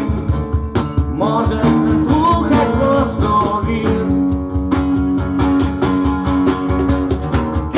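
Acoustic guitar strummed in a steady rhythm, with held chord notes and a wavering melody line about a second in: an instrumental passage between verses of a live acoustic song.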